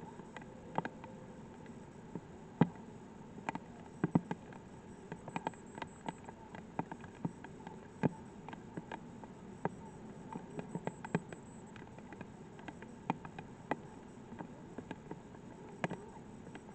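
Light rain: individual raindrops ticking irregularly, two or three a second, over a faint steady hiss.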